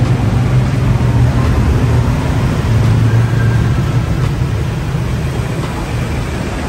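Toyota Vios engine idling with a steady low hum.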